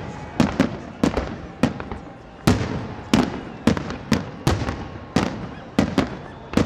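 Aerial firework shells bursting in a rapid, irregular series of sharp bangs, about two a second, each followed by a short echo.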